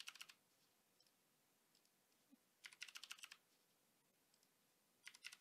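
Faint typing on a computer keyboard: three short runs of quick keystrokes, like keying in a number, one at the start, one in the middle and one near the end.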